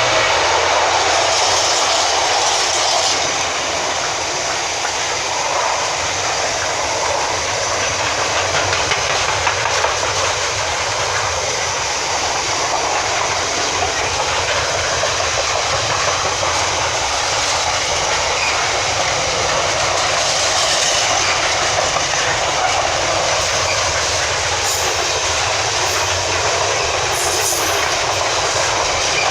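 Freight train passing through, a steady loud noise of its wagons' wheels running on the rails.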